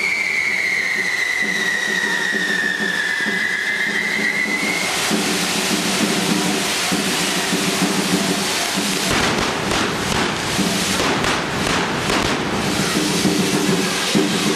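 Hand-held correfoc fireworks: a whistling firework's tone slides slowly down in pitch for about the first five seconds. Then comes the dense fizzing hiss of spark fountains spraying sparks, with many sharp crackles in the middle stretch.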